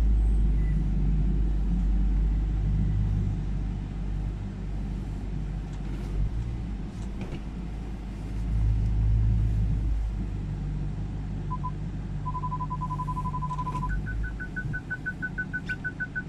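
BMW 645Ci's 4.4-litre V8 running through a Supersprint exhaust with a deep, steady rumble that swells briefly about eight seconds in. From about eleven seconds an electronic car beep sounds as one steady tone, then changes to rapid higher-pitched beeping near the end.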